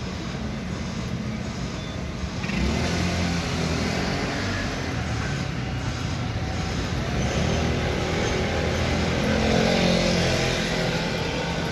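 City street traffic, with motor vehicles passing close by. It gets louder about two and a half seconds in, and a rising whine comes in near the end.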